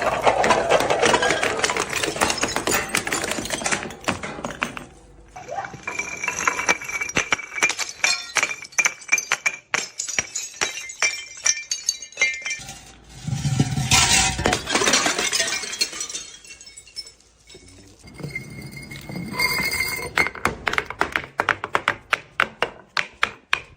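Glass bottles smashing and breaking, with a dense run of crunching, clinking shards and sharp impacts. A heavier crash with a deep thud comes a little past the middle, and a quick series of small clicks and clinks near the end.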